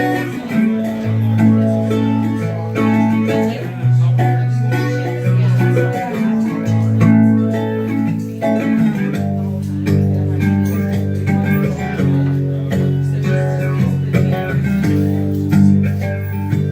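Guitar and bass playing the instrumental introduction of a song, with sustained chords and the bass note moving every second or two.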